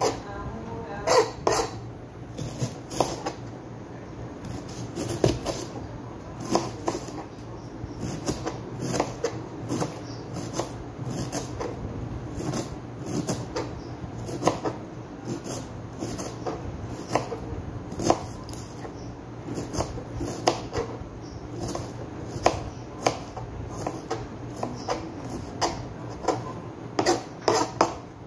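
Kitchen knife chopping red onion on a cutting board: an irregular run of sharp knocks, a few a second.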